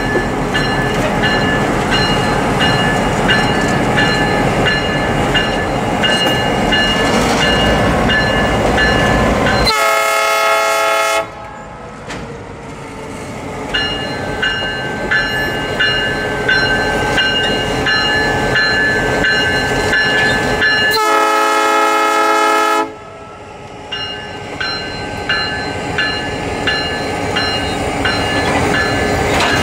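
Diesel freight locomotives rolling slowly past at close range, wheels clicking regularly over rail joints with a high steady squeal. The locomotive horn sounds twice, blasts of about a second and a half, roughly ten and twenty-one seconds in.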